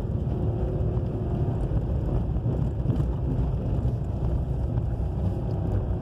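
Car driving along a dirt road, heard from inside the cabin: a steady low rumble of engine and tyres on the unpaved surface.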